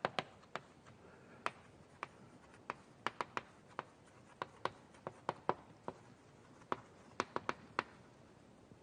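Writing and drawing on a board: irregular, faint, sharp taps and strokes of the writing implement against the board, about two a second.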